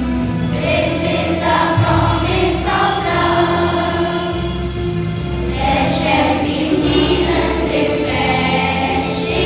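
A choir of voices singing a song over a steady instrumental accompaniment with sustained low notes.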